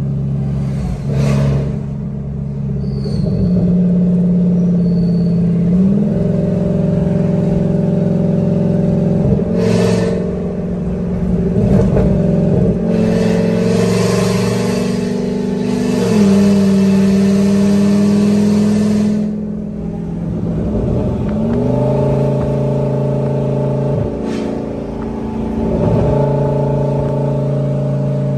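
Loud truck engine drone heard from inside the cab while driving, its note stepping up and down several times as it pulls away and settles. The occupants call it too loud.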